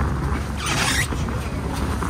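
Small fishing boat's engine running with a steady low rumble, and a brief squeak about half a second in.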